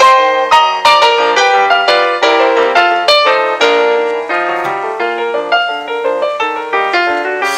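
Background piano music: a brisk, even run of struck notes.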